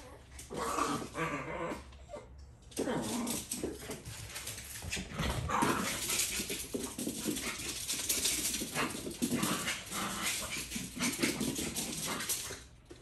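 Two small dogs scuffling over a dog bed, one bullying the other, with dog growls and whimpers throughout and a short lull about two seconds in.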